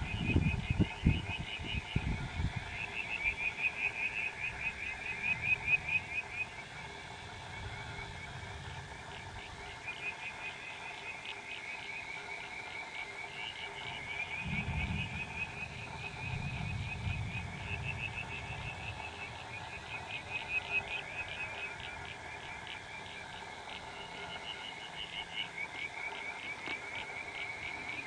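A chorus of frogs calling in rapid, pulsed trills that carry on without a break. Low rumbles come and go underneath, loudest in the first couple of seconds and again about halfway through.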